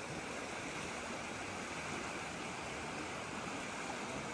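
Waterfall water rushing in a steady, even roar-free wash of noise.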